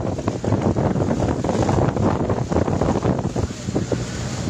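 Rustling and clattering as small silvery fish are scooped with a plastic basket and poured into plastic bags. Wind buffets the microphone, and a low steady hum runs underneath.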